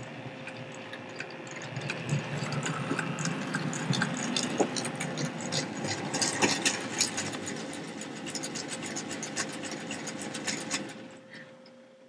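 HO-scale model train running: the locomotives' motors whirring and the wheels clicking over the rail joints as the train pulls forward. The sound builds over the first couple of seconds and dies away about eleven seconds in as the train stalls short of the hill.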